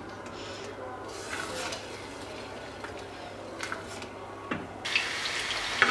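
Wooden spatula stirring thick sauce in a steel saucepan, with a few light scrapes and knocks against the pan. About five seconds in, a steady sizzle of hot frying oil cuts in suddenly.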